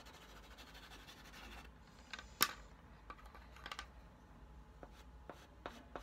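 Dry pastel stick scratching on paper in short strokes, with one sharp click about two and a half seconds in.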